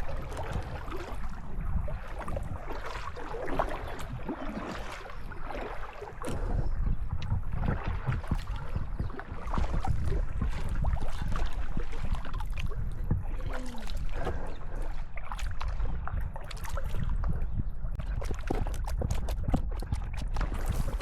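Kayak paddling: the paddle blades splash and drip with each stroke, over a steady low rumble of wind on the microphone.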